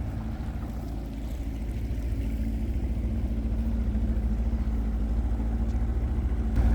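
Boat motor running steadily, growing gradually louder.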